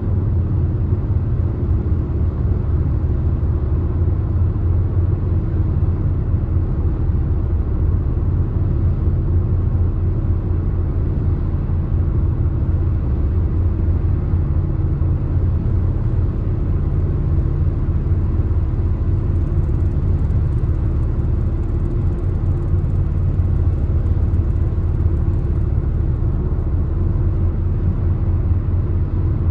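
Car driving at highway speed: a steady low rumble of tyres and road noise, with no change in pace.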